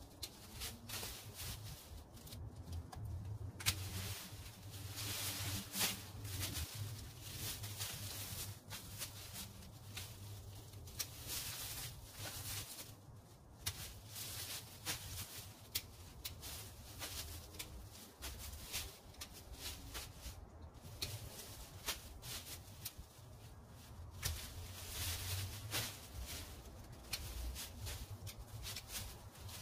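Leaves and branches of an overgrown shrub rustling and snapping as it is cut back by hand, with many sharp, irregular clicks.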